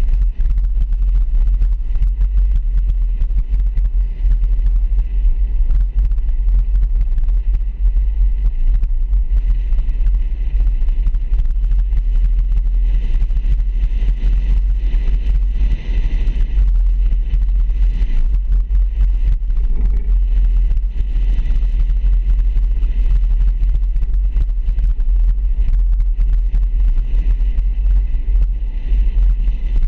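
Steady low rumble of a vehicle driving slowly, picked up by a camera mounted outside on its roof.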